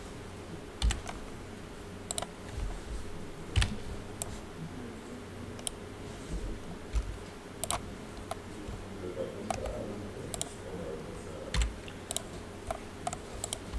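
Computer keyboard and mouse clicks: scattered, irregular clicks about once a second while working in 3D modelling software, over a faint steady hum.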